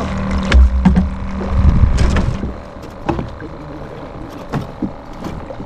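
Knocks and bumps on a small fishing boat over a low rumble that drops away about two and a half seconds in, followed by scattered light clicks.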